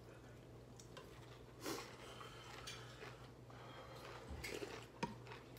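Quiet room tone with a steady low hum, broken by a few faint clicks and knocks of a spoon against dishes and one short rustle about two seconds in.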